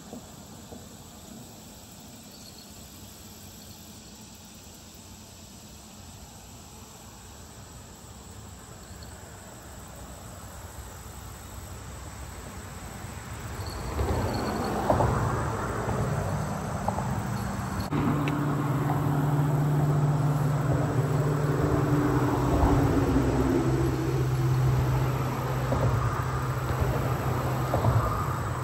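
Faint insects chirping, then from about halfway an engine draws closer and runs on steadily, with a low even drone for the rest.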